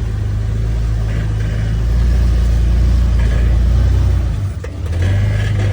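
Jeep Wrangler LJ engine pulling at low revs while crawling through a rock obstacle, a steady low rumble that grows louder about two seconds in and dips briefly near the end.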